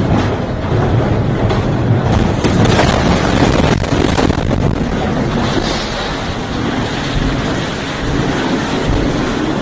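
Loud, steady rush of wind and sea coming in through the smashed windows of a ship's bridge after a wave has broken them. A few sharp knocks sound about two to four seconds in.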